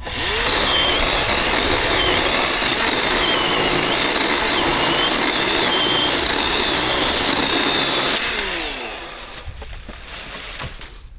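Kobalt 40-volt cordless electric chainsaw spinning up and cutting through a branch, its high motor whine dipping and recovering in pitch as the chain bites the wood. It winds down with a falling whine about eight seconds in.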